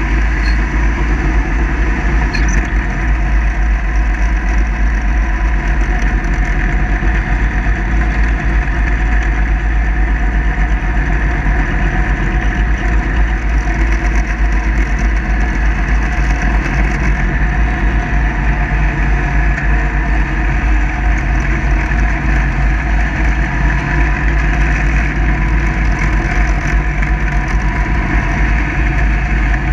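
Kubota zero-turn mower with a 54-inch deck running steadily while mowing grass: an even, unbroken engine drone with a heavy low rumble.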